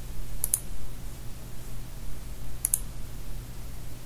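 Computer mouse clicked twice, about two seconds apart, each click a quick press-and-release pair, over a steady low hum.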